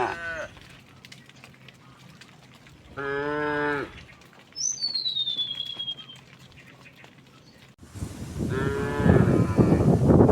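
Cows mooing: one short moo about three seconds in, and another near the end over a sudden loud, rough noise. A high, falling whistle-like call sounds around five seconds.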